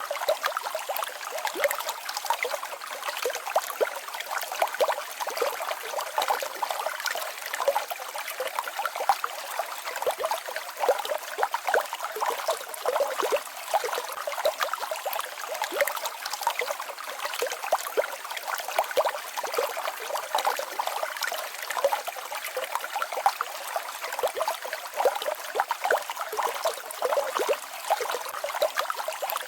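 Small mountain waterfall and stream babbling over rocks: a steady trickling splash made of many small quick splashes, with little low rumble.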